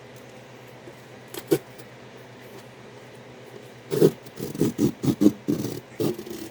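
Cardboard shipping box being handled and opened by hand: a couple of faint knocks, then a run of short, irregular scraping and crinkling noises in the last couple of seconds.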